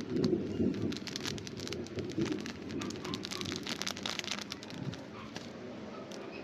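Food frying in hot oil in a pan, sizzling with a dense run of small crackles.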